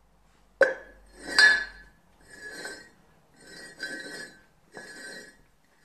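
A ceramic mug knocked down onto a hard floor with a clink, then four scrapes as mugs are slid around on the floor to shuffle them, each ringing with the same tone of the mug.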